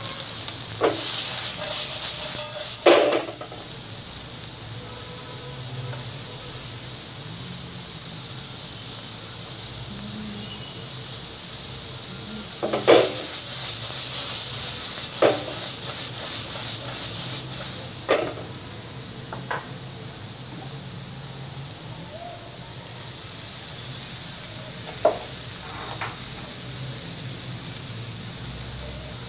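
Chopped vegetables sizzling in a carbon-steel wok over a gas burner: a steady high hiss that swells into louder, rapid sizzling twice, near the start and again about halfway, as the food is tossed and stirred. A few sharp metal knocks of stirring against the wok break through now and then.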